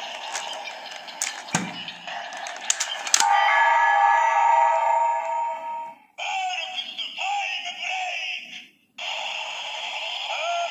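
Bandai DX Ziku-Driver toy belt running a Ridewatch transformation sequence through its small speaker. Plastic clicks and a knock as the belt is worked come first, then a held electronic chord at about three seconds, then recorded voice calls and music in short bursts separated by brief gaps.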